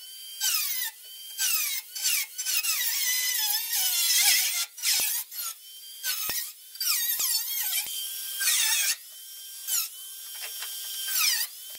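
Handheld power cutting tool slicing through the thin sheet metal of a car body's wheel well in repeated bursts. Its motor whine drops in pitch each time it bites into the metal and rises again as it frees, stopping and starting every second or two.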